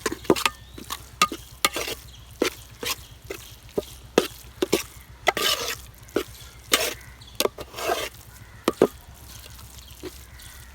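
A spatula scraping and knocking against a pan as a thick, dry beef roast is stirred on a low flame. The strokes are irregular, about two a second, with a few longer scrapes.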